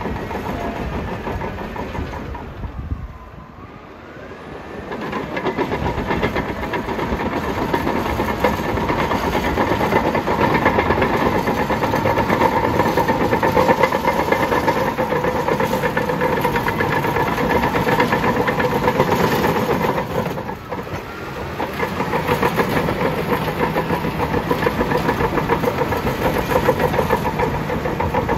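Bulldozer's diesel engine running under load, steady and loud. The sound dips briefly about three seconds in and again about 21 seconds in.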